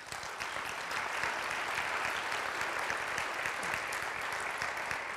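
Audience applauding, building over the first second and easing slightly near the end.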